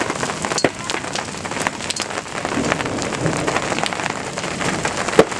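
Large hailstones, about an inch across, pelting down in a dense hiss of many sharp clicks and taps as they strike, with one louder knock near the end.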